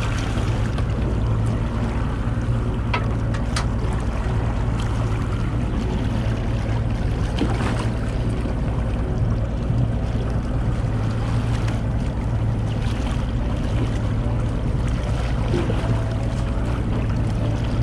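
Boat engine running steadily at low speed, a constant low hum, with a haze of water and wind noise over it. A few brief knocks come in the first half.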